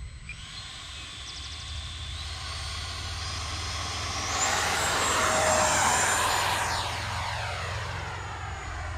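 Freewing Avanti's 12-blade 80mm electric ducted fan whining at takeoff power during its takeoff run. The whine climbs in pitch and is loudest about five to six seconds in as the jet passes. Its pitch then sweeps down as the jet climbs away.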